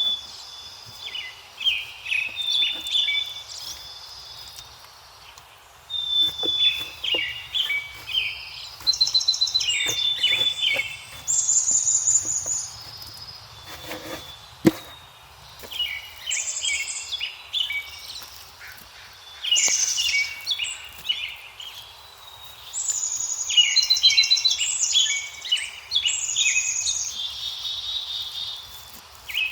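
Birds singing, with bright chirping phrases repeating every few seconds over a faint low background hiss. There is a single sharp knock about fifteen seconds in.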